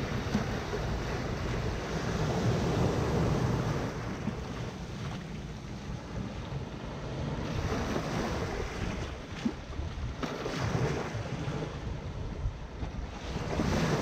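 Small Mediterranean waves breaking and washing up a sandy shore, the surf swelling louder and ebbing back, with the loudest surges a couple of seconds in and again near the end.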